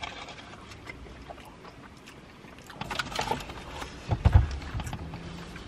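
Quiet mouth sounds of eating fried chicken and chips: chewing with scattered crunchy clicks, and a low thump a little past four seconds in, the loudest sound.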